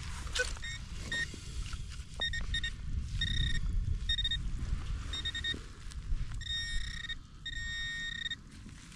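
Metal detecting pinpointer sounding over soil that holds a metal target: short beeps of one high pitch that come and go, and twice turn into a longer held tone in the second half, over a low rumble.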